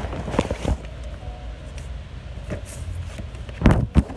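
Handling noise on a phone's microphone: rustling and rubbing over a low rumble, with scattered knocks and two louder knocks a little before the end.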